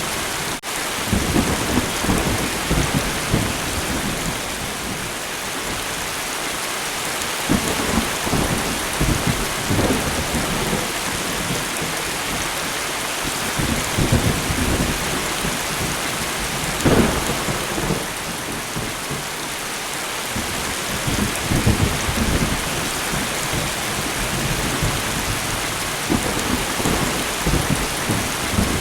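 Light rain falling steadily, with thunder rumbling low and repeatedly, swelling and fading every few seconds.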